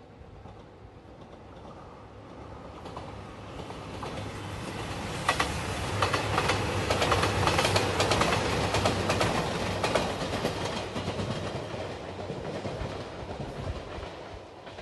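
JR Shikoku 2700 series diesel limited express passing close by. Its engine hum builds and its wheels click rapidly over the rail joints as the cars go past, most loudly in the middle, then the sound fades as it moves away.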